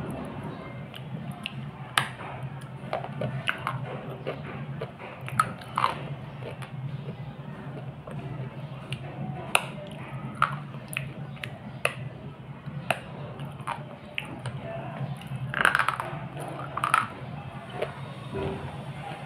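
A slate pencil being bitten and chewed right at a close microphone: irregular sharp crunches and snaps, about one a second. The loudest cluster comes about three-quarters of the way through.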